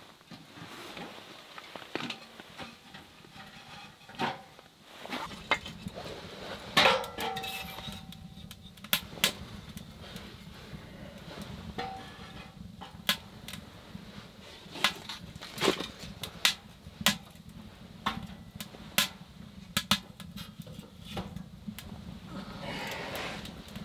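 Kindling being fed into a small steel Savotta wood stove and catching fire: irregular sharp clicks, knocks and crackles of wood on the stove's metal and in the young fire, some loud, over a low steady noise that begins about five seconds in.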